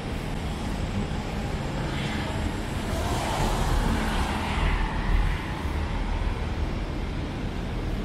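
City street traffic: a steady rumble of cars, with one vehicle passing close that swells and fades in the middle.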